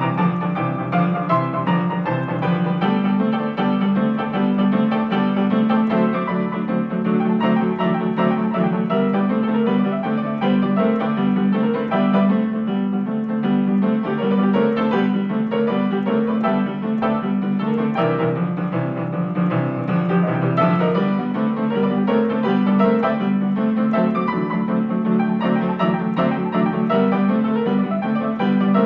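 Upright piano played solo in boogie-woogie style: a steady, repeating left-hand bass figure under busy right-hand chords and runs.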